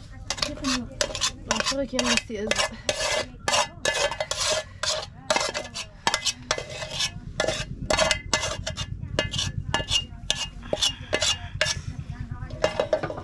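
Metal spoon stirring and scraping in a metal pot: a fast, irregular run of clinks and scrapes, several a second, some with a short metallic ring.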